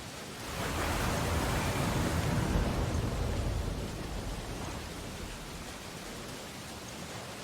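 Steady rain falling, with a roll of thunder that swells in about half a second in and dies away a few seconds later.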